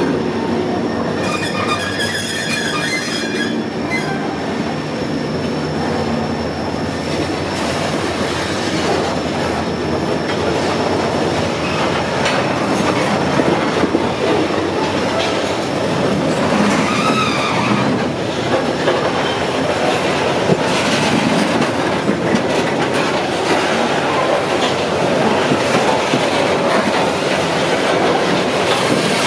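Freight train of hopper wagons rolling past, its steel wheels clattering steadily on the rails. High wheel squeals come from about a second in to about four seconds, and again around the middle.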